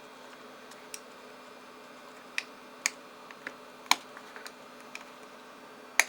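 Irregular sharp clicks and taps from hands handling the parts of an iBook G3 laptop as it is taken apart, with a handful of louder clicks and the loudest one at the end.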